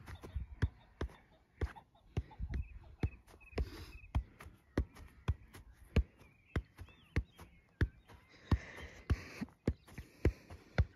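A football being juggled on the foot, keepy-uppy style: a steady run of short knocks as the ball is struck, about three touches a second.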